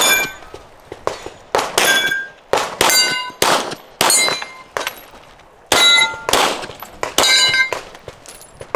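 Rapid gunshots at steel target plates, most shots followed by the bright ring of a plate being hit, about a dozen in all, with a pause of about a second near the middle.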